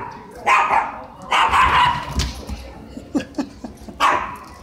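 A dog barking in separate loud barks: one about half a second in, a longer one from just after a second, a few quieter ones around three seconds, and a last loud bark at about four seconds.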